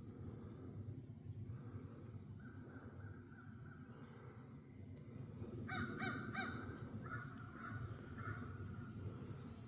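Crows cawing, a quick run of three caws about six seconds in followed by a few more, agitated calling that sounds upset, over a steady high drone of insects.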